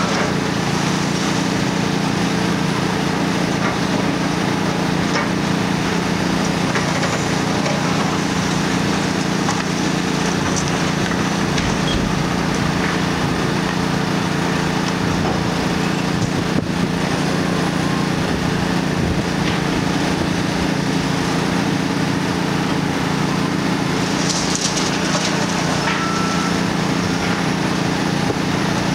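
The six-cylinder Hino diesel engine of a Kobelco SK400DLC-10E high-reach demolition excavator runs steadily under load. Over it come scattered knocks and crunching of concrete and brick debris as the boom-tip crusher breaks into the wall.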